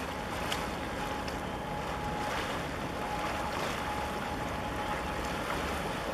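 Steady wind and sea noise at the shoreline: choppy water washing against the concrete breakwater, with wind on the microphone and a faint steady high tone running underneath.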